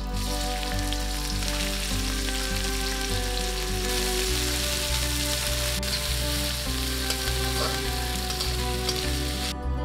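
Sliced onions sizzling loudly as they are dropped into hot oil in a metal wok and stirred, the sizzle cutting off just before the end. Soft background music plays underneath.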